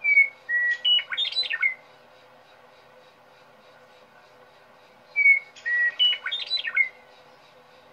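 A recorded bird song: a short phrase of whistled, gliding notes ending in a quick run of notes, played twice about five seconds apart, the same each time.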